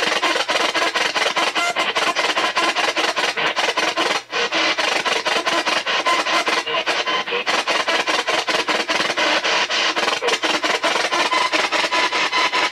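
P-SB7 spirit box sweeping rapidly through AM radio stations, a loud, continuous, choppy rasp of static with brief fragments of broadcast sound, with a short dropout about four seconds in.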